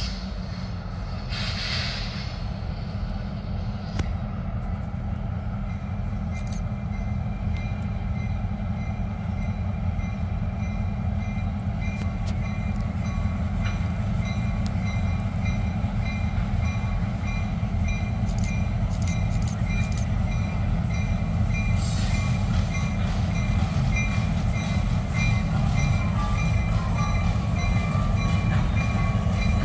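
Diesel-electric locomotive approaching at low speed, its engine rumble slowly growing louder. A faint, thin, high-pitched squeal joins from about six seconds in and is strongest near the end.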